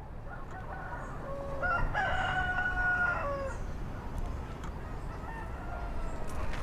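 A rooster crowing: one long crow of about two seconds, high and held in the middle and lower at the start and end, over a steady low background rumble, with a fainter call after it.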